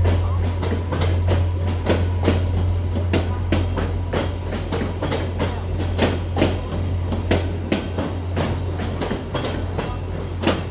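VIA Rail passenger cars rolling past at low speed as the train arrives, their wheels knocking over rail joints in an irregular series of clunks, over a steady low drone.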